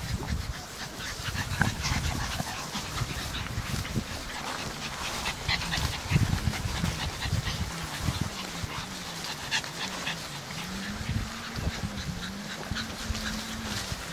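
Brussels griffon and petit brabançon puppies playing rough in grass: small yips and whimpers over scuffling and rustling. From about five seconds in, a low hum wavers slowly up and down underneath.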